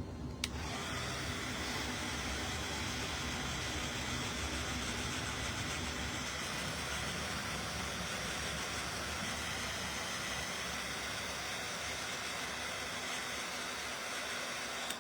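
Handheld hot-air blower switched on about half a second in and running steadily, a constant even whoosh of blown air and motor.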